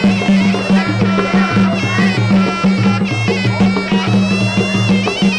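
Traditional Khmer boxing ring music: a sralai (Khmer oboe) plays a reedy, wavering melody over a steady, repeating drum beat.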